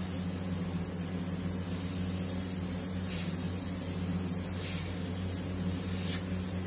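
Airbrush spraying white paint: a steady hiss of air, over a constant low hum.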